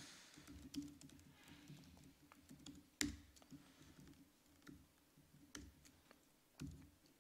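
Sparse keystrokes on a laptop keyboard, with one sharper key click about three seconds in.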